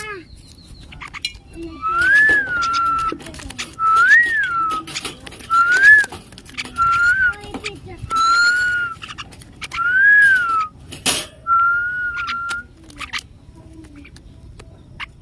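A person whistling to call a pet common myna: seven short whistles about two seconds apart, most sliding up and back down, with a steadier one near the end. Scattered sharp taps and clicks sound between them.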